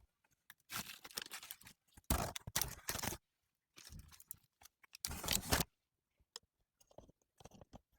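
Unboxing handling noise: packaging and printed cards rustling and crinkling in irregular bursts with dead-silent gaps between them, thinning to a few light taps and clicks toward the end.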